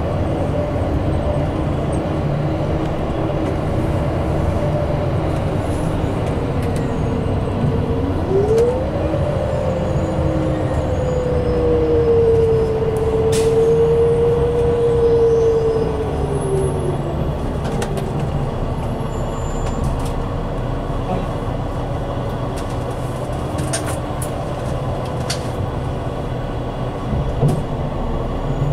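Inside a 2016 Gillig CNG transit bus with a Cummins Westport gas engine and an Allison B400R automatic transmission, heard over steady road noise. A drivetrain whine rises sharply about a third of the way in, holds for several seconds, then falls away. A single small knock comes near the end.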